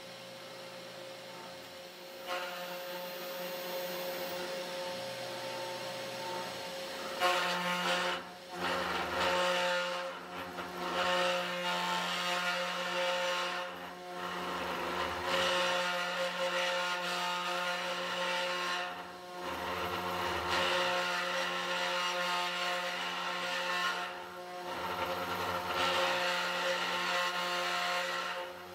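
Desktop CNC router's spindle motor running steadily while a 30-degree V-bit mills beech wood, with a steady whine under a rasping cutting noise. The cutting gets louder about seven seconds in, then dips briefly about every five seconds as the bit finishes one line and starts the next.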